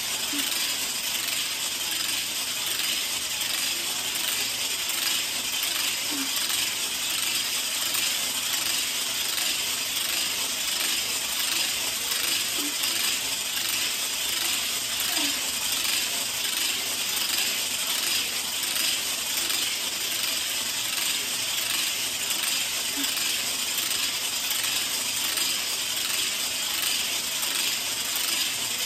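Weighted smart hula hoop spinning around the waist: its segmented ring and the weighted ball on its cord make a steady, fast, dense rattling clatter of small clicks.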